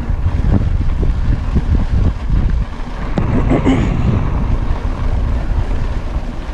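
Wind buffeting the camera microphone over the rumble of mountain bike tyres on a dirt road, with frequent small rattles and knocks as the bike runs over bumps.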